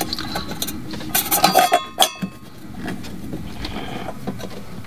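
Metal clinking and rattling as the diesel fuel filter bowl is handled to check it for water, with a cluster of sharp clinks that ring briefly between about one and two seconds in.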